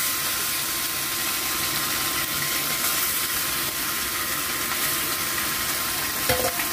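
Raw chicken pieces frying in hot oil in a frying pan: a steady, dense sizzle.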